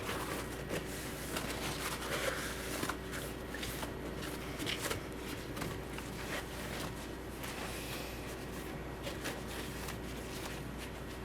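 Paper towel rustling and rubbing in soft, scattered strokes as spilled water is wiped up, with a faint steady hum underneath.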